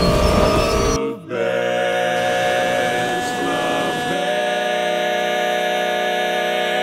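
Barbershop quartet singing a cappella, holding a long sustained final chord. A loud rushing burst of noise fills the first second before the chord.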